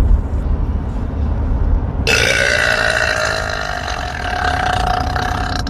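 A woman's long, drawn-out burp lasting about three and a half seconds, starting about two seconds in; its pitch rises at the start and then holds steady. A low rumble comes before it.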